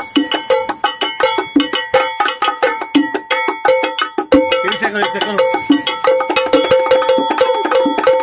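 A pair of bongo drums played by hand in a fast, steady rhythm of ringing strikes on the heads, with a short break just past four seconds.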